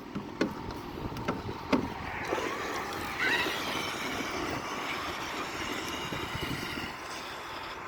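Traxxas X-Maxx RC monster truck driving, its brushless electric motor whining and rising in pitch about three seconds in, with a few knocks in the first two seconds.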